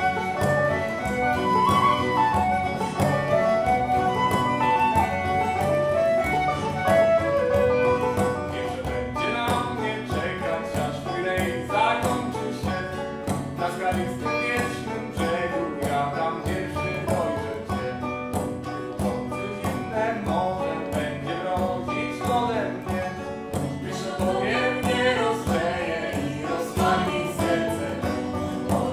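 Live acoustic folk band playing: a flute carries the melody over strummed acoustic guitar, banjo and a hand drum, then after about nine seconds the flute drops out and voices sing over the strings and drum.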